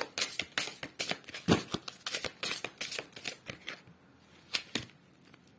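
A deck of oracle cards being shuffled by hand: a quick run of crisp card clicks that stops about three and a half seconds in, followed by two single clicks.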